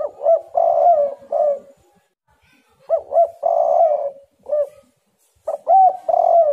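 Spotted dove cooing in three phrases about three seconds apart. Each phrase has a few short clipped coos around a longer, rougher middle note. The last phrase is still going at the end.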